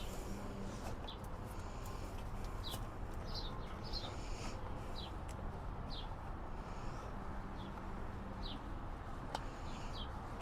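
Short high chirps of a small bird, each a quick downward slide, repeated irregularly about once a second over a steady hiss of outdoor background noise.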